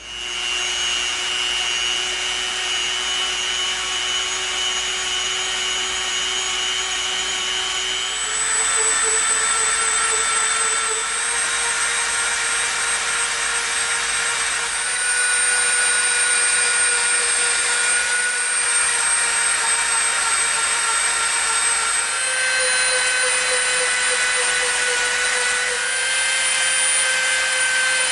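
Dremel rotary tool with a sanding drum running steadily as it sands a bevel into EVA foam. Its whine steps up in pitch about a third of the way in and again later.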